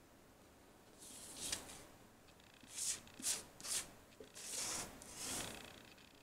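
A sheet of drawing paper being slid and turned around on a tabletop by hand: a series of about six short, dry rubbing swishes, then it stops.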